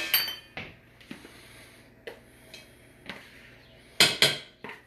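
Light knocks and scrapes of a plastic tub against a stainless steel mixing bowl as whipped topping is emptied into it, with a louder double clatter about four seconds in.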